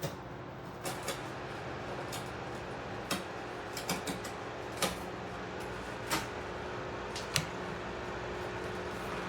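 Airbition 8-inch electric wall-mount fan running steadily with a low hum and whoosh of air, with several light clicks scattered through.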